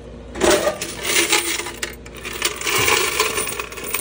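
Coins clattering and jingling in a vending machine's metal coin box as it is lifted out and emptied, starting with a loud clatter about half a second in.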